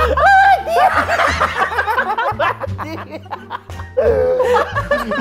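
A man laughing hard in wavering fits over background music with a bass line.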